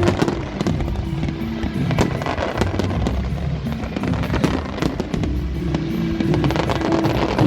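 Fireworks bursting and crackling over and over, a dense run of bangs, with music playing alongside.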